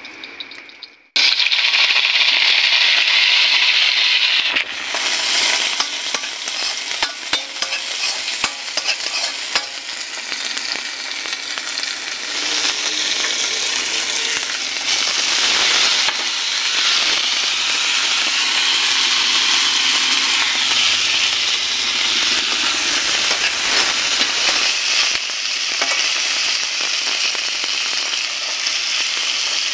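Chopped onions and chillies, later with shrimp, sizzling in hot oil in a metal wok and stirred with a spatula. The sizzle starts suddenly about a second in, as the food goes into the oil, and keeps up loudly under the scrape of stirring.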